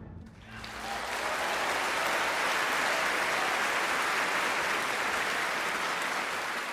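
Audience applauding after a live orchestral performance. The clapping swells within the first second, then holds steady.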